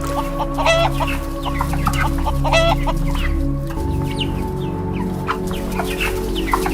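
Birds calling in many short notes, with two stronger calls under a second in and again about two and a half seconds in, over steady background music.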